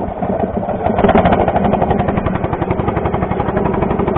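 Small fishing boat's engine running with a steady, rapid pulsing beat, growing louder about a second in.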